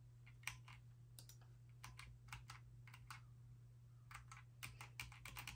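Faint computer keyboard keystrokes: single W, A, S and D key presses spaced out at first, then quicker runs of presses from about four seconds in.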